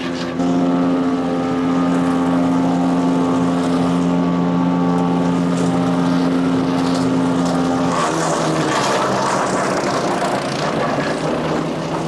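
Power King chipper shredder's Kohler CH440 14 HP single-cylinder engine running steadily at speed. About eight seconds in, a rough, crackling grinding noise rises over it: material being shredded through the chipper drum.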